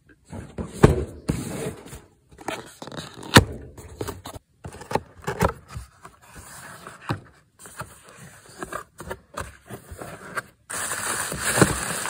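A cardboard box being handled and opened on a metal mesh table: irregular scraping, rustling and sharp knocks, the loudest about a second in and about three and a half seconds in, broken by a few abrupt gaps. Near the end comes a denser, steadier rustle of packaging as a hand reaches in to the bubble-wrapped contents.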